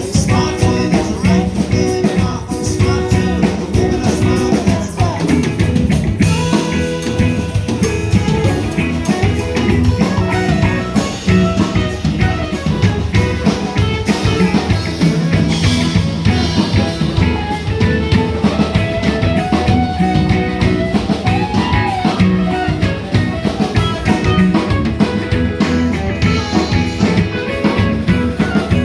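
A band playing an instrumental passage on drum kit and guitar, with a steady beat.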